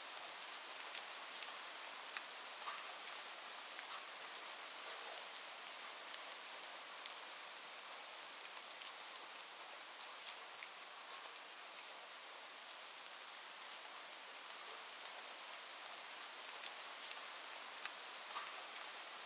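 Steady rain falling: an even soft hiss with scattered light ticks of individual drops.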